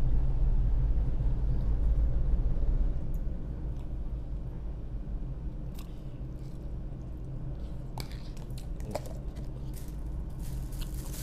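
ASD tug's diesel engines running with a steady low hum, quietening about three seconds in. A few light clicks and knocks come later.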